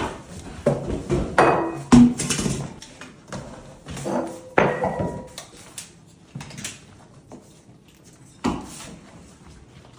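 Kitchen clatter of pots, pans and utensils: a run of sharp knocks and clinks, loudest about two seconds in, thinning out in the second half, with one more knock near the end.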